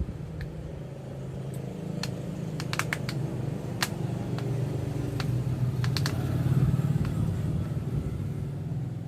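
Scattered sharp little clicks and taps of an Oppo A37 smartphone being pried and taken apart. Under them is a steady low engine hum that swells to its loudest about seven seconds in and then eases off.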